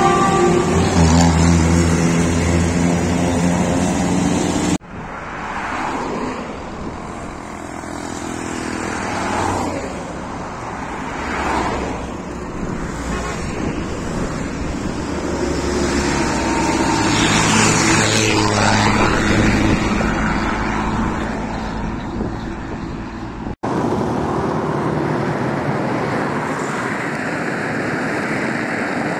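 Decorated Isuzu buses' diesel engines running as they drive past, with road traffic noise around them. The sound is three clips joined by sudden cuts, about five seconds in and near the end.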